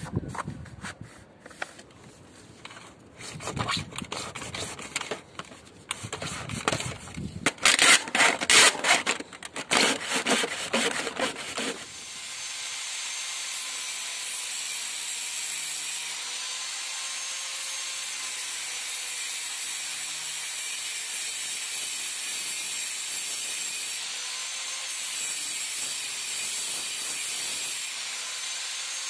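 Irregular rubbing and scraping of gloved hands and a scouring pad along a rail, loudest toward the middle. About twelve seconds in, it gives way to a small angle grinder running steadily, with a faint whine, as it cuts at the wall around a cable box.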